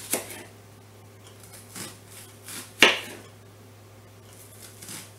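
Kitchen knife slicing a peeled onion into rounds on a cutting board: a few separate cuts, each a short sharp knock of the blade through onto the board, the loudest about three seconds in.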